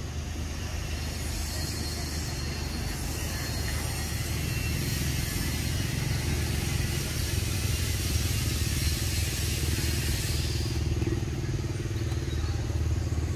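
Steady low motor rumble, like an engine idling, under a high hiss that stops suddenly about three quarters of the way through.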